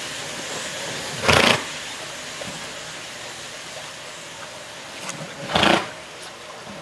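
A swimming horse blowing out hard through its nostrils twice, about four seconds apart, each a short loud rush of breath, over a steady background hiss.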